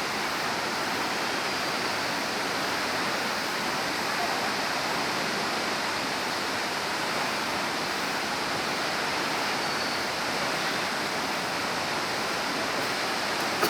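Waterfall: water falling with a steady, even rush.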